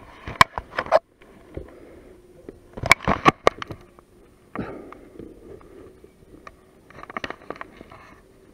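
Handling noise in a boat as a pike is held over the side: clusters of sharp knocks, clicks and scrapes, one group within the first second, a louder group about three seconds in and another around seven seconds in, with faint rustling between.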